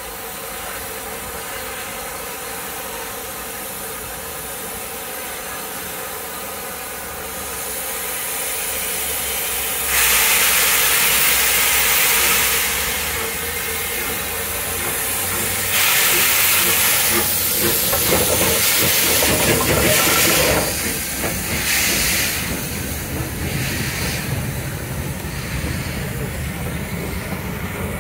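Merchant Navy class steam locomotive 35018 departing, with loud bursts of hissing steam about ten seconds in and again from about sixteen to twenty seconds, over a steady hum. Shorter hisses follow, then an uneven rumble as the locomotive gets under way.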